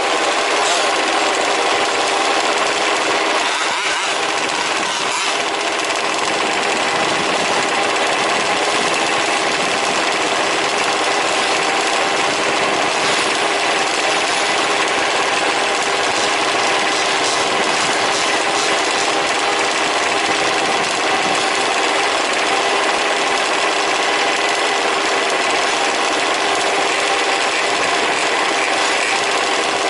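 A pack of 1/5-scale petrol RC trucks racing, their small two-stroke engines buzzing together in a steady, dense drone.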